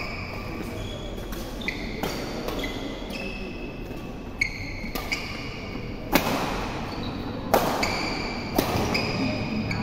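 Badminton rally: rackets hitting the shuttlecock about seven times, sharp cracks that grow loudest in the second half, with short high squeaks of shoes on the court between the hits.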